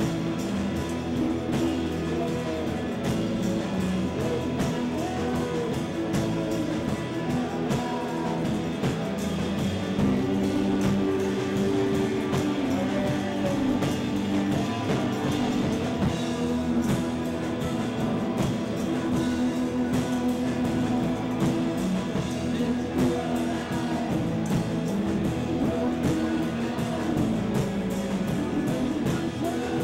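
Rock band playing live: guitar over a drum kit.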